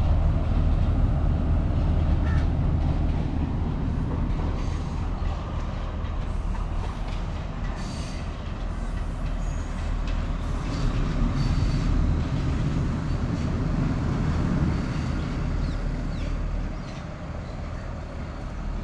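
Class S10 diesel multiple unit double set running away down the track: a low, steady diesel engine rumble and rail noise that slowly fade. A few short, faint high tones come and go.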